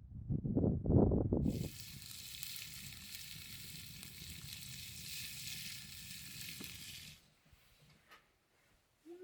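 Low rumbling in the first second and a half, then a steady high hiss for about five and a half seconds that cuts off suddenly.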